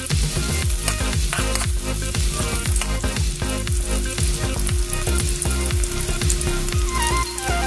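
Chopped onion and garlic sizzling in hot oil in a wok, stirred with a metal spatula that clicks and scrapes against the pan: the first stage of a sauté.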